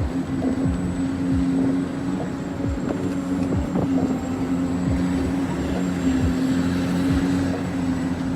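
Small electric motors of radio-controlled construction models running with a steady hum and a faint high whine, with many small clicks and knocks scattered throughout.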